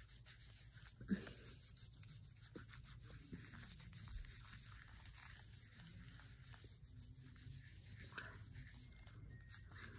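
Faint rubbing and scrubbing of a wet facial wipe across skin, wiping off foamy cleanser, with one short soft knock about a second in.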